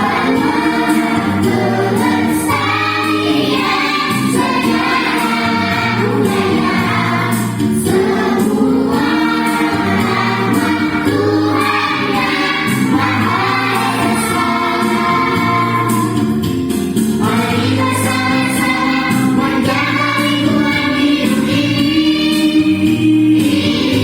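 Choral singing with instrumental backing and a steady beat.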